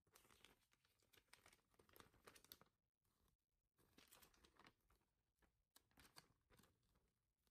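Faint rustling and crinkling of a folded paper insert sheet as hands unfold it, in two spells with a short pause about three seconds in.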